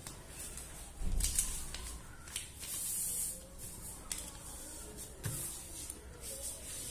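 Paper pattern pieces rustling and sliding on fabric as hands press and smooth them flat, with a soft bump about a second in.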